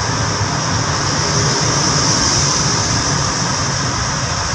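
Steady engine, tyre and wind noise inside the cabin of a manual car cruising in sixth gear at highway speed, about 90 km/h.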